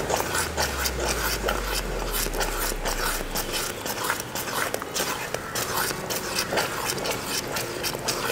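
Long wooden spatula stirring and scraping a thick arrowroot-flour payasam around a brass uruli, in a steady run of short scrapes, as milk is poured in to thin the thickened mixture.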